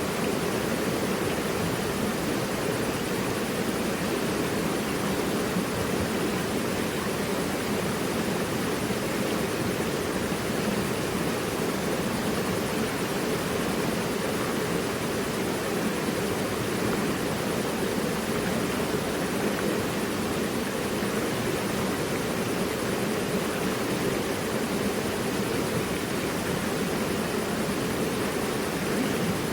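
Mountain river rushing over rocks: a steady, even roar of flowing water with no breaks.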